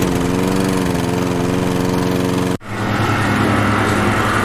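Lawnmower engine running steadily. It cuts out for a moment about two and a half seconds in, then carries on at a slightly different pitch.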